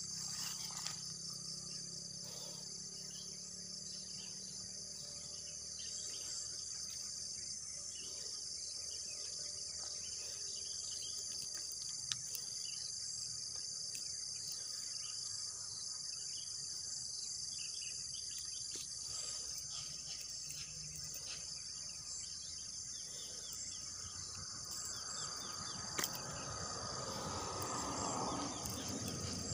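A steady, high-pitched chorus of night insects, with a couple of sharp clicks and some rustling handling noise near the end.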